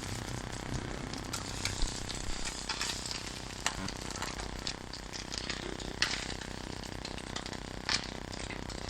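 Oil sizzling and crackling steadily on a hot tawa (flat iron griddle), with a few sharp utensil clicks against the pan now and then.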